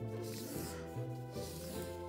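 Instrumental background music with a bass line that steps from note to note.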